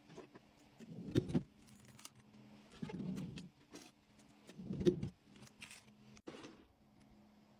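Soft handling noises from keychain accessories and fluffy pom-poms being picked up and moved, in three short bursts about two seconds apart, with light clicks in between. A faint steady hum runs underneath.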